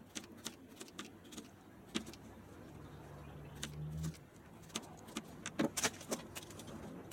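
Kitchen knife tapping and knocking on a plastic cutting board as a potato is sliced into chips, in quick irregular clicks, a few louder ones near the end. A low hum sounds for about a second and a half in the middle.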